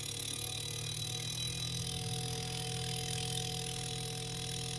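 LG BMG089NHMV smart inverter refrigerator compressor running steadily in test mode 1, a low hum with faint higher tones over it. It has started and is running under the test-mode command, the sign that the compressor is not defective.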